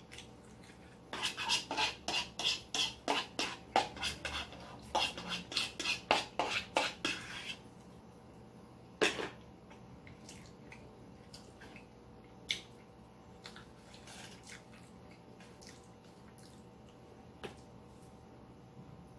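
Cutlery scraping and clinking against a plate: a quick run of strokes, about three a second, for several seconds, then a few single clinks.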